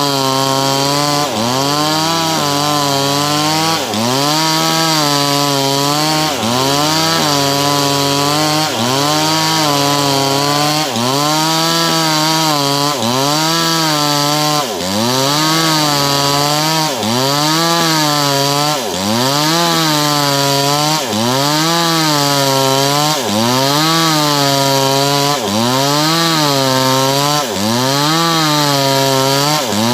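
Small engine running without pause, its pitch rising and falling evenly about every two seconds.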